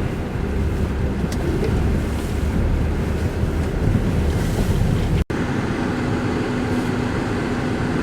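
Blizzard wind blowing hard and buffeting the microphone, a rough rumbling noise. About five seconds in the sound cuts out for an instant and comes back as a steadier, less gusty noise with a constant low hum under it.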